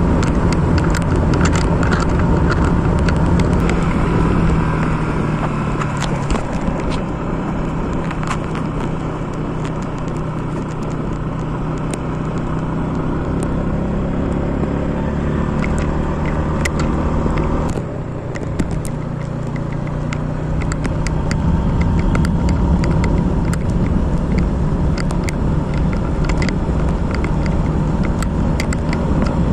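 Motorcycle engine running while riding, with wind and road noise. The engine note drops and quietens about five seconds in. It breaks briefly near eighteen seconds, then picks up again. Many short clicks are scattered through it.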